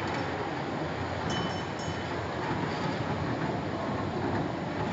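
Small mall kiddie train ride running along its circular track: a steady rolling rumble with no distinct clicks or whistles.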